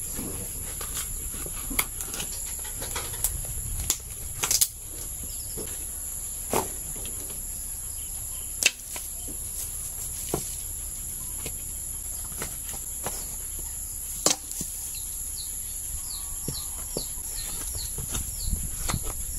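Dry coconut shell halves knocking and clattering as they are handled and sorted for copra, a dozen or so sharp irregular knocks. Under them runs a steady high insect buzz, and there is a quick run of short chirps near the end.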